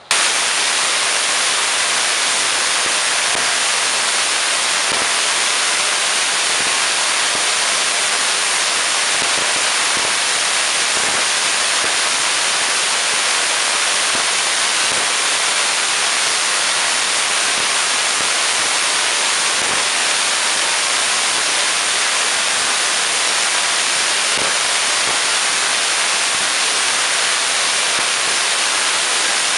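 6-inch spark gap Tesla coil firing: the spark gap and the arcs from the breakout point make a loud, steady hissing crackle that cuts in suddenly at the start and holds unbroken throughout.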